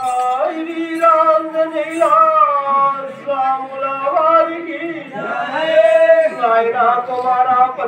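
A man singing a verse of a Telugu folk drama unaccompanied, holding long, drawn-out notes that bend slowly in pitch.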